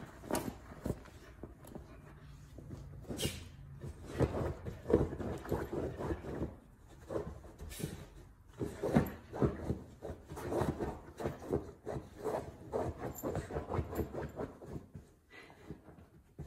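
Husky digging and pawing at a fabric-covered dog bed: irregular scratching and scuffing strokes on the cushion's fabric.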